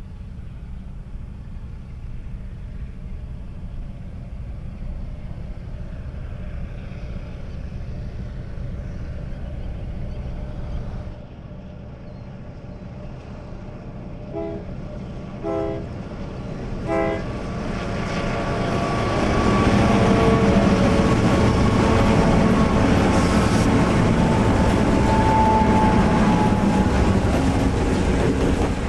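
First-generation EMD diesel locomotives working a freight train: a distant low engine rumble, three short horn blasts about halfway, then the locomotives passing close and loud, with freight cars rolling by on the rails near the end.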